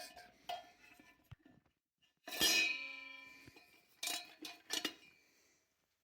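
Steel transmission parts, the sun gear and reverse shell of a 4L60E, clinking as they are handled and set in: one loud metallic clank about two and a half seconds in that rings on for about a second, then a few lighter clinks near the end.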